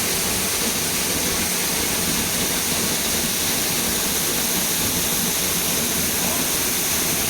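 Waterfall's rushing water, a steady even roar.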